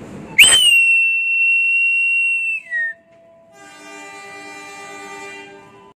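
A railway conductor's whistle blown once, a loud high steady tone lasting about two seconds that sags in pitch as it stops: the conductor's signal to the driver that the train may depart (Semboyan 41). About a second later the locomotive horn answers more faintly with a steady chord for about two seconds, the driver's acknowledgement before moving off (Semboyan 35).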